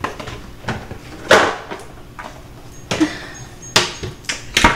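Kitchen things being handled and put away at the counter: a string of sharp knocks and clatters, about seven in under five seconds, the loudest near the end.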